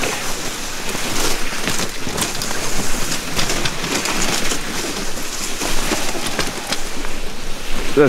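Steady rushing noise of a dog sled moving over snow, with irregular scrapes and knocks throughout.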